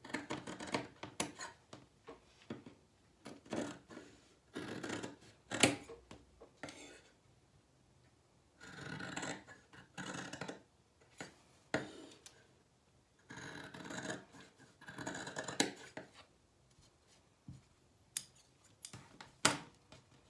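Fabric scissors snipping through two layers of cotton-linen panel with fused interfacing, cutting out corner squares in several runs of short snips with pauses between. A few sharp clicks near the end.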